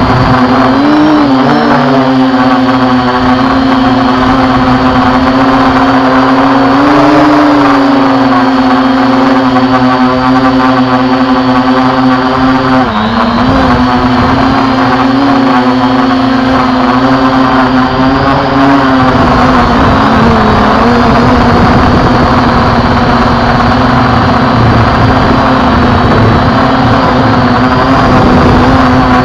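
Bugs GPS quadcopter drone's motors and propellers buzzing loudly close to the microphone in flight, a steady hum whose pitch wavers slightly and dips briefly about 13 seconds in and again around 20 seconds.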